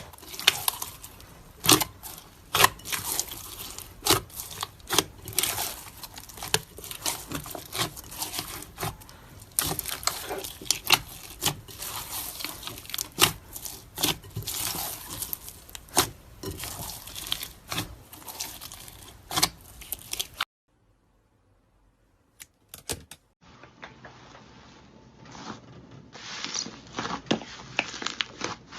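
Slime squished and stretched by hand: a dense run of sticky clicks, crackles and pops. It cuts off suddenly about twenty seconds in. After about three seconds of silence, similar crackling starts again, quieter and duller.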